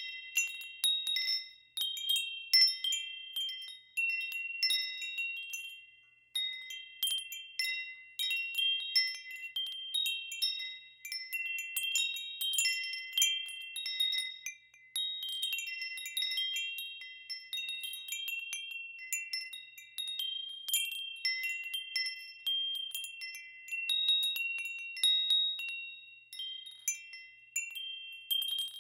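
Wind chimes ringing: several high tones struck at irregular moments, overlapping and dying away.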